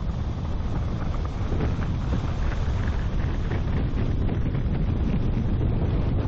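Wind buffeting the microphone of a bonnet-mounted camera on a moving car, over a steady low rumble of the car driving on rough asphalt.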